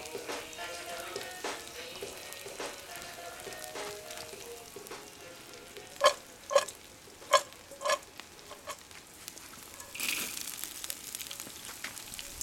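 Meat and onions sizzling in hot oil in a cast-iron kazan, a steady crackle. About six seconds in, a bowl knocks against the pot four or five times with short ringing clanks as julienned carrots are tipped in. A louder burst of sizzling follows about ten seconds in as the carrots hit the oil.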